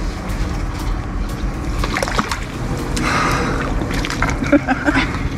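A hooked fish splashing at the water's surface beside a fishing raft as it is reeled in, about three to four seconds in, over a steady low rumble.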